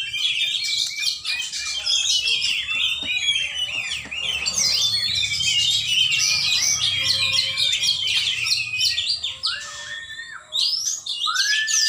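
Oriental magpie-robin (kacer) singing, a dense run of fast, varied chirps and trills, with a short break about ten seconds in and a few lower arching whistled notes near the end.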